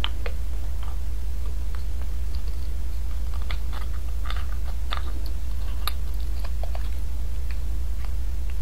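Metal utensil scraping and clicking against a split beef bone as the marrow is dug out, a sparse scatter of short clicks over a steady low hum.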